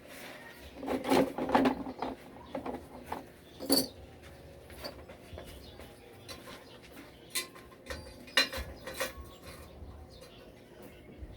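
Metal clinks and knocks of hand tools working on a motorcycle, coming in short irregular clusters.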